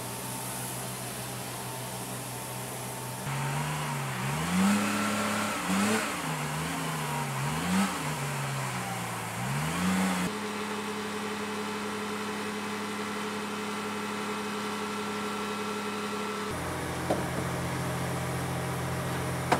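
Heavy diesel engines of flight-line cargo-handling vehicles. One revs up and down about four times in quick succession, then runs at a steady speed with a faint high whine. Near the end the engine note changes to a lower, steady running with a couple of sharp clicks.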